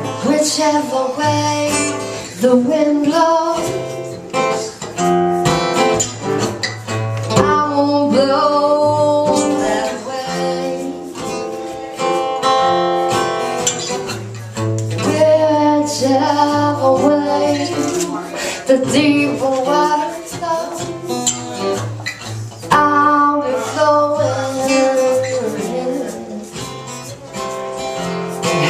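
Live acoustic performance: acoustic guitars strummed in steady chords with singing over them.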